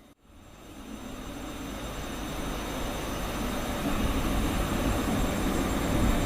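Electric train approaching along the line: a rumbling rush of wheels and motors that cuts in just after the start and grows steadily louder.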